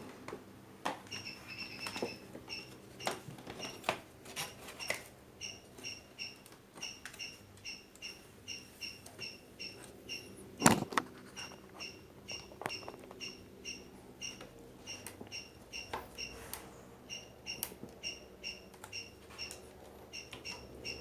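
Scattered clicks and knocks of plastic and metal parts being handled and prised apart as an LED TV is dismantled, with one loud click about ten seconds in. A short, high chirp repeats about twice a second in the background.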